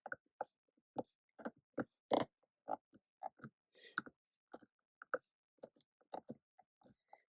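Irregular series of short, faint taps and rubs, about two or three a second, as fingers press a stamp down firmly onto card.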